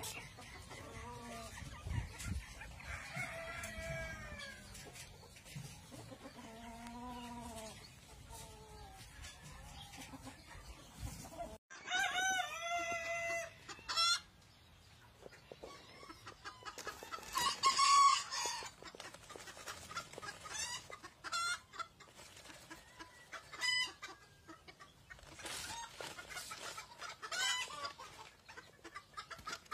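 Rosecomb bantam chickens clucking and calling, with a rooster crowing loudly in the second half.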